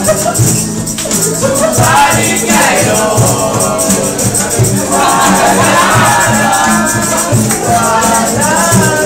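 Live acoustic jam: two acoustic guitars strummed while a cajón keeps a steady beat, with a group of voices singing along.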